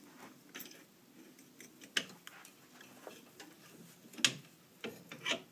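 A big screwdriver prying a front brake caliper piston back into its bore, making a few sharp metal clicks and taps against the caliper and pads, the loudest about four seconds in.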